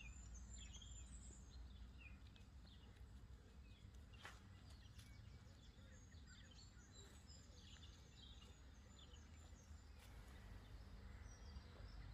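Near silence: faint birdsong, high chirps and short trills, over a low steady rumble.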